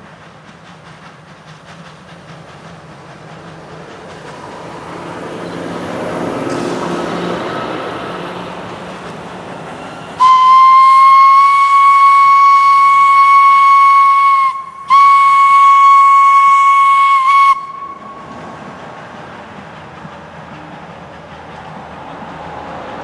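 Steam locomotive passing with a long train of coaches: the rumble of the train builds, then its steam whistle sounds two long blasts at one steady pitch, the first about four seconds and the second about two and a half, loudest of all. The coaches then roll by with a steady rolling noise.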